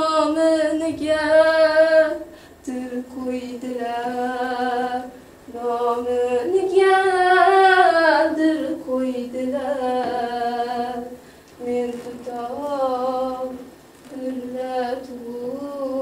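A woman singing solo with no instruments: a slow melody in phrases of two to three seconds, with vibrato on the held notes and short breaths between phrases.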